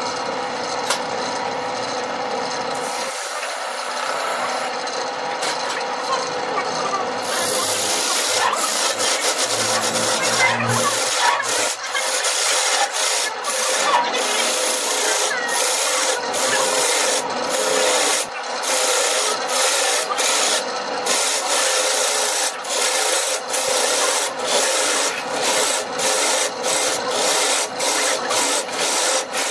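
Wood lathe running, then a turning tool cutting into the spinning glued-up wooden blank from about seven seconds in: a loud rough scraping, broken by many short gaps as the tool lifts and moves.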